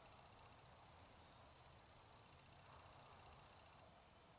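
Near silence, with faint, short, high-pitched chirps repeating irregularly.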